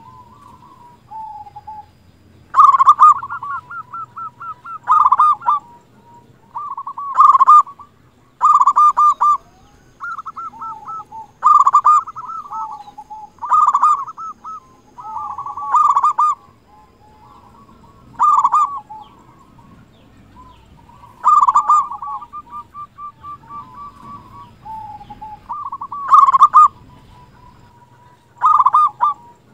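A zebra dove (perkutut) sings its staccato cooing song: about a dozen loud phrases of rapid stuttering coos, each about a second long and a couple of seconds apart, with softer single coos between them.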